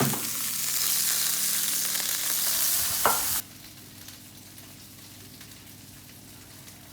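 Whole chicken sizzling loudly in a hot grill pan straight from the oven, with a knock about three seconds in. The sizzle then cuts off abruptly, leaving a steady low hum.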